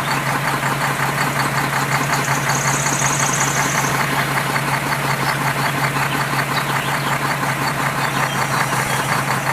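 A small electric motor running steadily with a constant low hum and an even buzz, starting and stopping abruptly.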